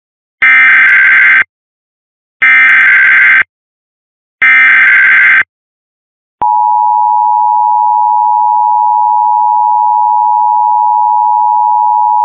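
Emergency Alert System activation: three one-second bursts of SAME digital header data tones, each a second apart, then the steady two-tone EAS attention signal starts about six seconds in and holds.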